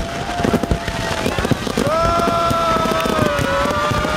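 Fireworks bursting with many bangs and crackles. A horn sounds briefly near the start, then again in a long steady blast from about two seconds in.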